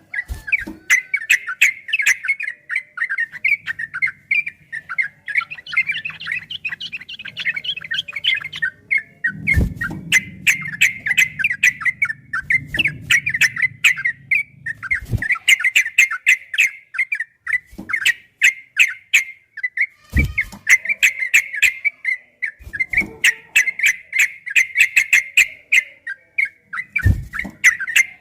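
Yellow-vented bulbul (trucukan) singing a long, fast, unbroken run of chirping notes, punctuated by sharp clicks.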